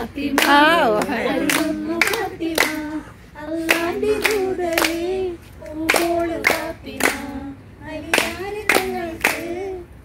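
Women singing a song together while clapping their hands in time, about two claps a second.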